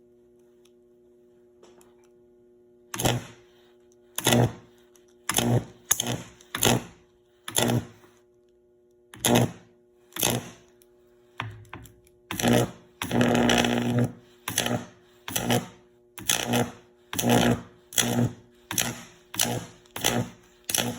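Microwave-oven transformer plugged in and humming steadily at mains frequency. From about three seconds in, a series of high-voltage arcs (about 2400 volts AC) are drawn, each a short, loud buzzing crackle, coming more often toward the end. One arc about thirteen seconds in is held for over a second.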